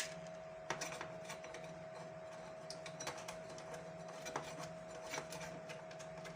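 Irregular metal clicks and ticks of a screwdriver working a stiff stainless-steel screw out of an LED floodlight's housing, over a faint steady hum.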